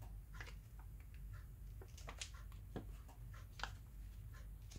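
Faint handling noise from reverse-osmosis filter parts being worked by hand: a few light clicks and small rustles, scattered, over a low steady hum.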